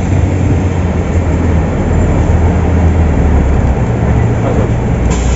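Volvo 8400 city bus under way, heard from inside the cabin: a steady low engine drone over road and tyre noise.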